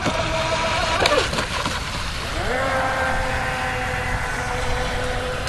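Electric motor of a Pro Boat Widowmaker RC speedboat whining as it runs, dropping in pitch and fading about a second in as the throttle comes off, then rising again a second later and holding a steady whine. A steady hiss of water and wind runs underneath.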